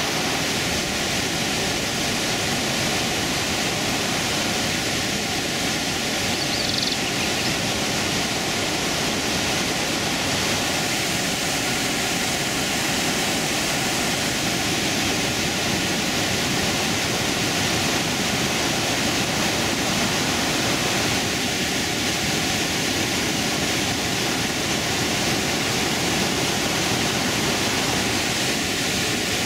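Steady, even rush of Iguazú Falls: a river's rapids pouring over the brink and crashing into the gorge below.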